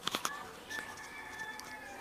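A few clicks and rubs of a wireless lapel mic being clipped onto a shirt, then a faint rooster crow, one drawn-out call of about a second.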